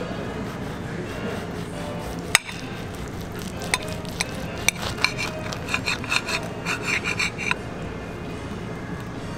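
A table knife cutting through a burger and scraping and clinking against the plate: a single sharp clink about two seconds in, then several seconds of sawing with quick scraping clinks that stop about two seconds before the end, over a steady background hum.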